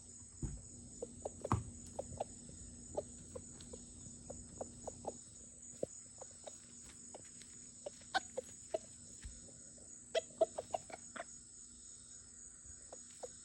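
Rooster giving short, irregular clucking calls, bunched into quick runs about eight and ten seconds in: his warning noises to his hens after hearing a hawk. Crickets chirr steadily behind.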